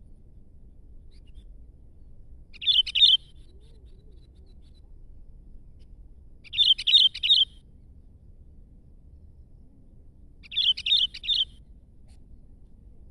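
Sooty-headed bulbul singing: three short phrases, each of two or three quick notes, about four seconds apart.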